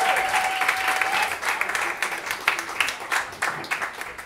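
Audience applauding a comedian onto the stage, the dense clapping thinning to scattered claps as it dies away. A held tone fades out about a second in.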